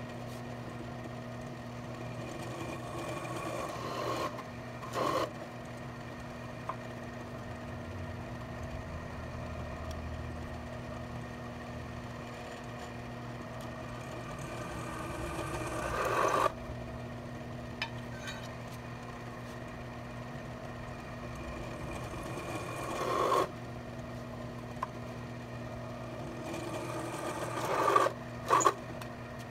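Millrite milling machine's spindle running steadily while a center drill bores holes through 1/8-inch steel angle iron. The cutting sound builds over a couple of seconds for each hole and stops abruptly, about four times, with short metal clanks as the angle iron is slid along between holes.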